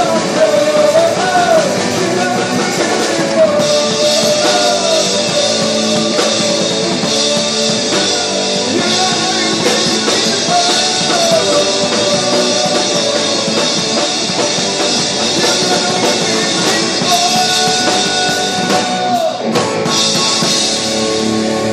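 A live rock band playing: a singer over electric guitars, keyboard and drum kit, with the cymbals coming in strongly about three and a half seconds in. Near the end the vocal line slides down.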